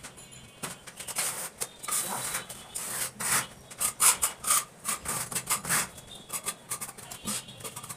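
Quick, irregular scraping and rubbing strokes of a hand tool working along the edge of a plastic bathroom door frame where it meets the wall.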